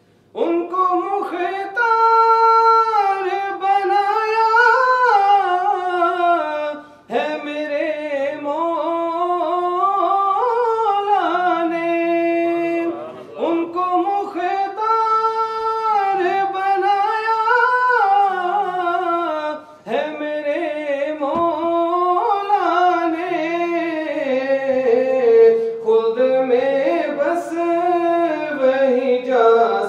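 A man singing a naat, an Urdu devotional song in praise of the Prophet, solo and unaccompanied, in long ornamented phrases that bend up and down in pitch. There are short breath breaks about 7, 13 and 20 seconds in.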